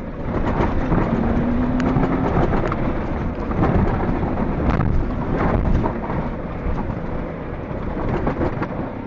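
Jeep off-roading on soft sand, heard from inside the cabin: a loud, rough rumble of engine and tyres in the sand, with many knocks and rattles from the jolting body. It swells about half a second in and eases a little after about six seconds.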